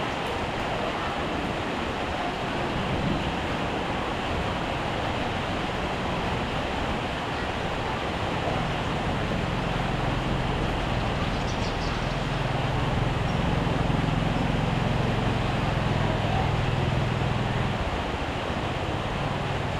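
Heavy rain falling in a steady hiss. A low rumble joins it about halfway through, swells, and fades again near the end.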